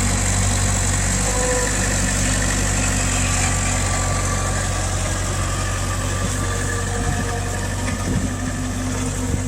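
Mini excavator's engine running steadily at a constant speed.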